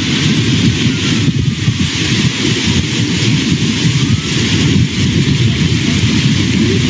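Floodwater rushing, a steady loud rush that is heavy in the low end with a hiss above it.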